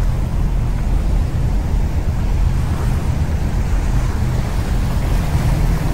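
Sea surf washing up the beach in a steady rush, with wind rumbling on the microphone.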